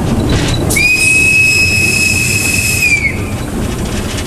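TEM2 diesel shunting locomotive's whistle giving one steady, high-pitched blast of about two and a half seconds, starting nearly a second in, as a warning at a road crossing. Underneath, the diesel engine runs and the wheels rumble, heard from inside the cab.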